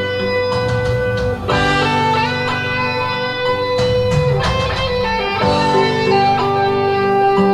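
Guitar playing slow, ringing chords, each held for a second or two before the next is struck.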